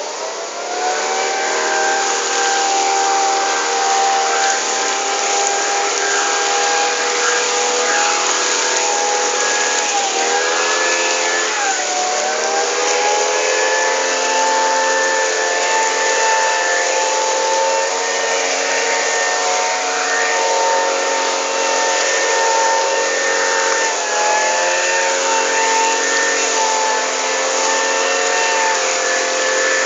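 Backpack gasoline leaf blower running hard: its small engine whines steadily over a rush of blown air, the pitch dipping briefly and climbing back a few times as the throttle is eased and opened again.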